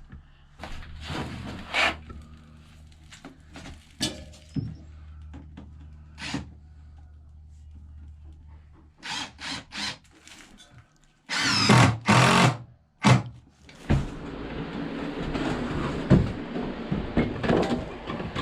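Knocks and clunks of tools and materials being handled during plumbing work. About two-thirds of the way in come two short, loud bursts of a power tool, followed by a steady, noisier run of work to the end.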